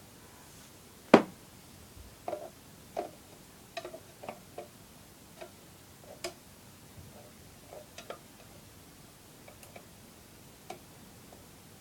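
Leopard gecko crunching crickets: irregular small clicks and ticks, with one sharper tap about a second in.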